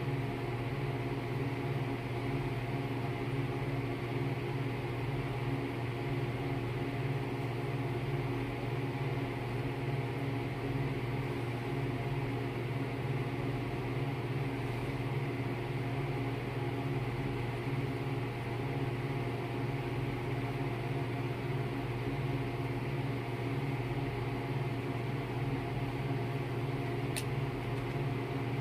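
Steady, low machine hum that never changes, with one faint click near the end.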